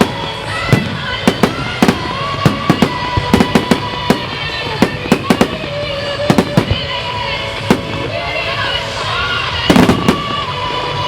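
Aerial fireworks going off in a rapid, irregular barrage of sharp bangs and crackles, several a second at times, with music playing underneath.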